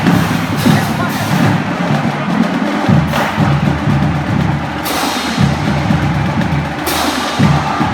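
Loud music driven by drums and percussion, with sharp crashes about every two seconds.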